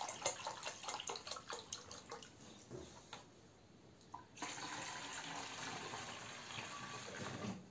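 Water poured from a plastic bottle into a small plastic jug, splashing unevenly at first. About four and a half seconds in, a steady pour follows as the jug is emptied into a plastic pump sprayer's tank, adding water to dilute hydrogen peroxide into a disinfecting solution.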